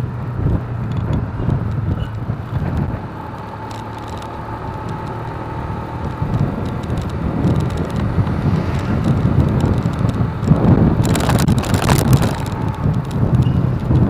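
Wind buffeting the microphone over the low, steady rumble of a motorcycle riding through city traffic. About two-thirds of the way through, a louder rush of noise lasts for a second or so.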